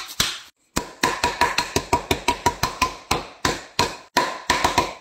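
Wooden rolling pin pounding wrapped chocolate on a countertop to smash it into chips, a quick run of sharp blows at about four or five a second, with a short pause about half a second in.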